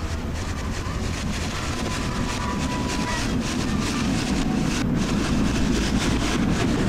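Wind blowing across the microphone: a steady rushing noise with a deep rumble that grows slightly louder.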